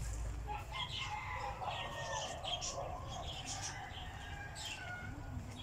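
A rooster crowing, one long crow starting about a second in, while small birds chirp repeatedly and a steady low rumble runs underneath.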